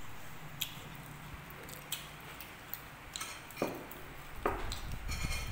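Quiet eating noises at a table: fresh leaves handled and folded into a wrap, then bitten and chewed. A few light clicks and knocks come through, the loudest about three and a half and four and a half seconds in.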